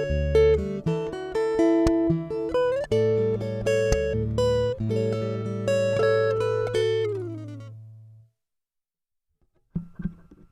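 Acoustic guitar played through a Skysonic Pro-1 pickup, a series of plucked notes over a held bass note, the last chord ringing out and dying away about eight seconds in. A brief soft sound follows about ten seconds in.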